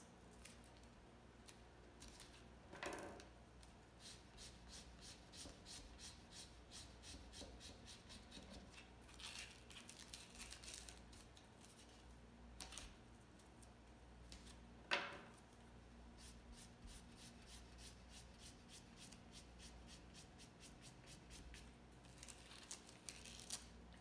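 Scissors snipping through thin cardboard: a run of small, quiet cuts, with one sharper snip a little past halfway.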